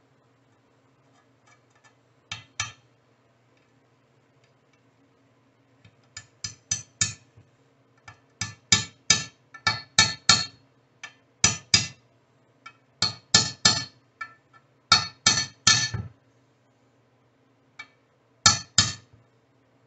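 Hammer striking a punch to drive a sealed SKF 6002 ball bearing, a light press fit, into the cast-aluminium rear engine cover of a Honda GL1100: gentle taps on the bearing's outer race. They come as a pair about two seconds in, then from about six seconds in as quick groups of two to four taps about every second.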